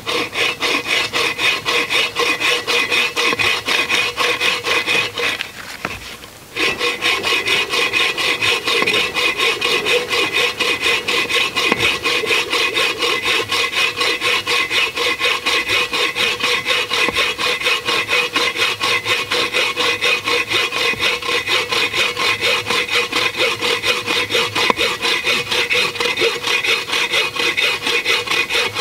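Agawa bow saw fitted with a Sidney Rancher blade cutting through a log of dry hophornbeam (ironwood), in fast, steady back-and-forth strokes. The sawing stops briefly about six seconds in, then carries on.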